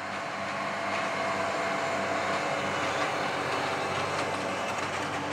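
Tractor diesel engines working under load while pulling Krone ZX 450 GD forage wagons that pick up grass, the nearest a Massey Ferguson 8670 rig passing close by. A steady engine hum over a broad mechanical rushing, swelling during the first second and then holding even.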